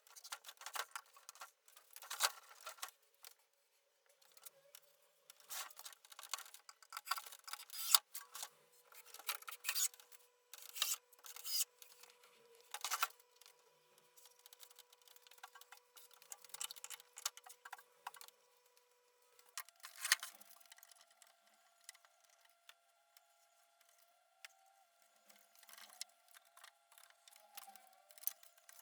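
Irregular clicks, taps and knocks of hand work on parts, with faint steady tones underneath. The sound is thin, with no bass at all.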